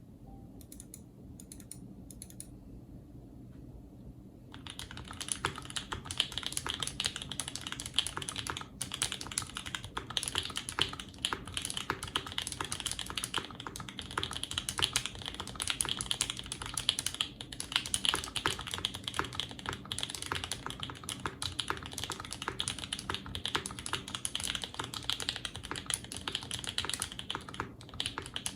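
Fast, continuous typing on a Mode Eighty mechanical keyboard with lubed and filmed C3 Banana Split linear switches on a stack-mounted aluminium plate. A few scattered key taps at first, then steady rapid keystrokes from about four and a half seconds in.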